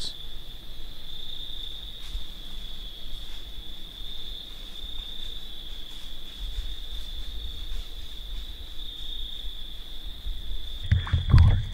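Steady high-pitched chorus of crickets trilling continuously. Near the end a louder low rumble and a voice cut in over it.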